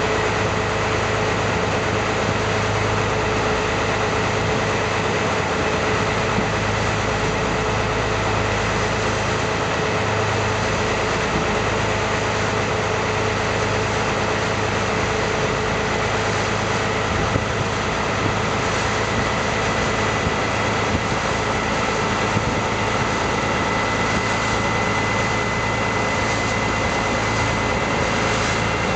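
Engine of a wooden Thai longtail boat running steadily while the boat cruises across the lake, a constant drone with an even whine above it.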